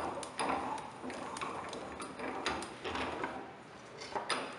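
Cast-iron woodworking bench vise being opened by spinning its handle: a run of light, irregular metallic clicks and ticks from the turning screw and the sliding handle.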